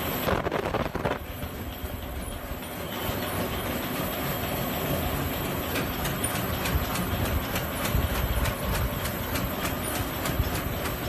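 Automatic flat medical mask making machine running: a steady mechanical clatter with rapid clicking.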